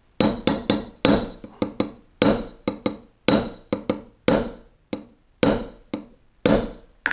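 Small hammer tapping a 1/8 inch steel punch to drive the roll pin out of a CZ P-07 pistol slide resting on a bench block. Sharp metallic taps about three a second, with a harder, ringing strike roughly once a second.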